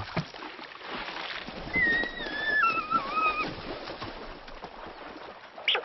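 Water sloshing and splashing as a sambar deer wades. About two seconds in comes a high whistling call of nearly two seconds that falls in steps.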